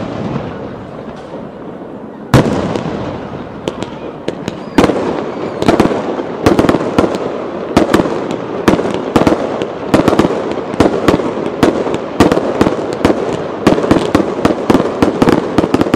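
Aerial firework shells bursting in a display: a single bang about two seconds in and another near five seconds, then a dense run of rapid bangs and crackling as several shells fire together.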